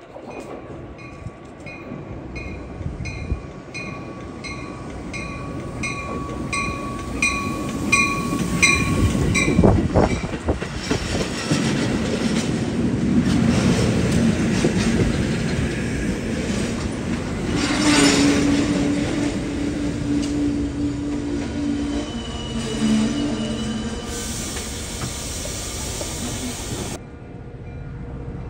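A Metra bilevel commuter train rumbles into the station and rolls past, slowing, with wheels squealing on the rails. For about the first nine seconds a bell dings about twice a second. Near the end a steady squeal comes in as the train brakes.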